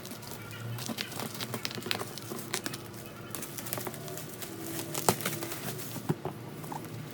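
Clicks and rustles of an air fryer and its packaging being handled and unboxed, with a sharp louder click about five seconds in.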